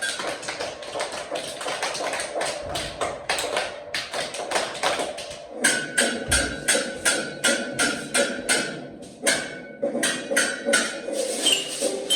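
A noise band of small hand percussion striking in rhythm, about three or four sharp knocks a second, playing along to music. A high ringing tone joins in the middle.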